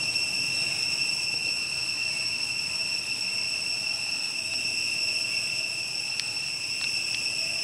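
A steady chorus of insects: a constant high-pitched drone that does not change in level. A few faint clicks come near the end.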